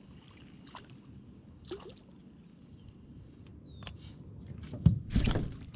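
Quiet open-water ambience around a small aluminium fishing boat, with a few faint clicks and a short falling chirp. About five seconds in comes a burst of loud knocks and rustles as the rod and reel are handled.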